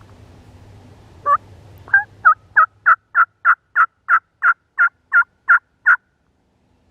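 A series of about fourteen wild-turkey yelps, each a quick two-note call, in a steady run of about three a second. The first two yelps are slower and the run stops abruptly.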